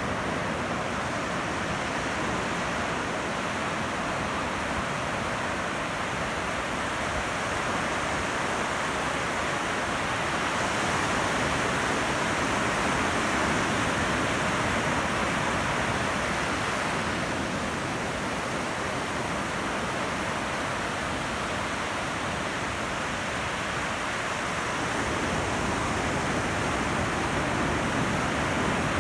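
Ocean surf washing continuously, a steady rushing hiss of breaking waves that swells slightly twice.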